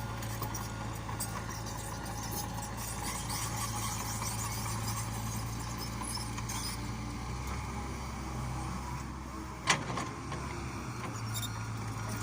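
Komatsu PC70-8 excavator's diesel engine running steadily while it works soil, with a single sharp knock about ten seconds in.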